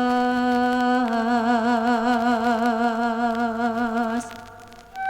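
Background music: a singer holds a long drawn-out note of a slow Javanese song. About a second in the voice moves to a new note held with a steady vibrato, and the note fades out about four seconds in.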